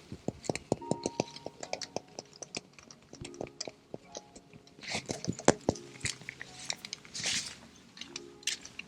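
Fingers rapidly tapping and clicking on the metal and hard parts of an excavator in irregular runs, with two brief scratching sounds about five and seven seconds in. Soft background music under it.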